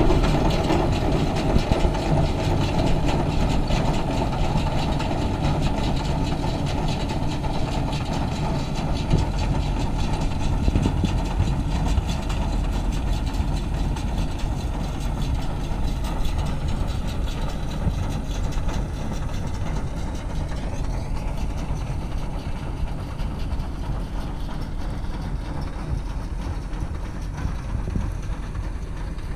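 Tractor towing a round baler, its engine and the baler running steadily as it drives away, the sound fading gradually.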